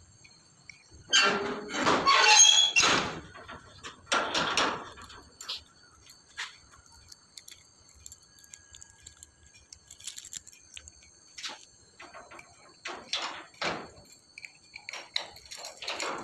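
Rusty iron barred gate squealing and clanking as it is moved, loudest in the first few seconds. A series of smaller metal knocks and scrapes follows as its iron sliding bolt is worked.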